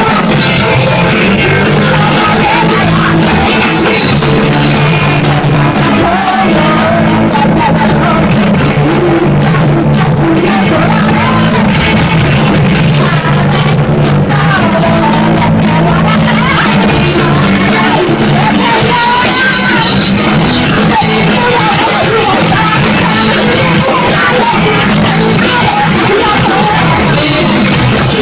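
Live rock band playing loud: electric guitars, bass and drums, with a singer singing and yelling into the microphone.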